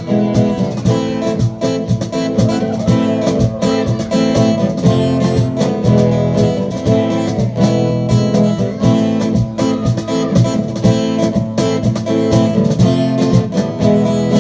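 Band music without vocals: strummed guitar over a steady percussion beat.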